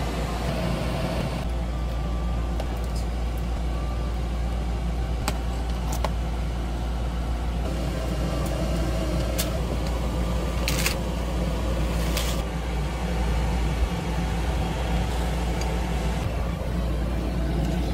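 A steady low rumble runs throughout, with a handful of short sharp clicks and clinks of utensils against the metal pan and cup.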